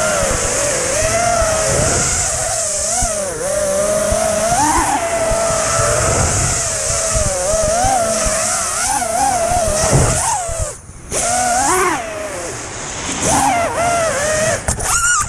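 FPV racing quadcopter's brushless motors and propellers whining, heard from the quad's own onboard camera; the pitch rises and falls with the throttle. The sound dips sharply for a moment about eleven seconds in.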